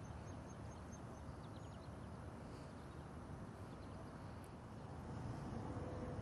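Outdoor ambience: a steady low rumble with a few faint, high bird chirps in the first two seconds. A faint steady hum comes in about five and a half seconds in.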